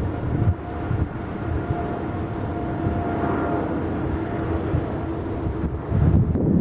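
Jet airliner engines going by: a steady whine over a broad rumble that swells about halfway through, with gusts of wind on the microphone near the start and end.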